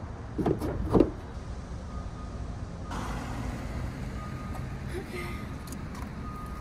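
Steady low rumble of a vehicle or traffic, with two brief handling sounds about half a second and a second in as power steering fluid is topped up at the engine's reservoir.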